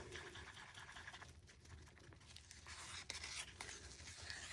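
Faint scraping of a wooden craft stick stirring resin in a small plastic cup, with a few light ticks of the stick and cup.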